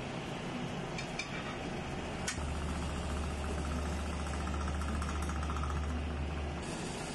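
A few light clinks of a utensil against a metal pancake pan over a steady kitchen hiss. A low hum comes in after about two seconds and stops shortly before the end.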